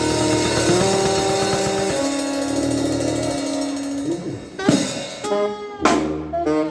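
A live band playing: held chords for the first few seconds, then loud drum hits with short stabbed chords near the end.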